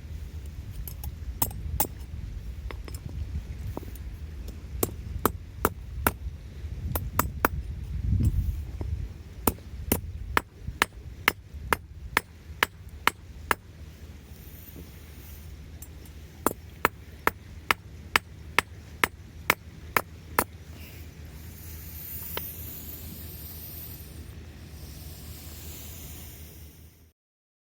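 Hammer striking stainless steel wire, a run of sharp ringing metallic taps about two a second. The strikes pause for a couple of seconds, then a second shorter run follows.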